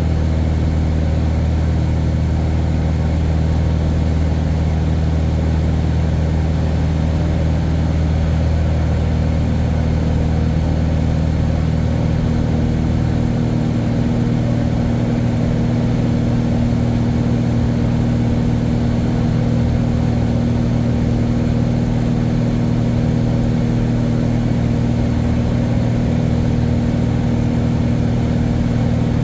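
Steady engine and rotor drone inside a tour helicopter's cabin, a constant low hum whose lowest tone shifts a little about halfway through.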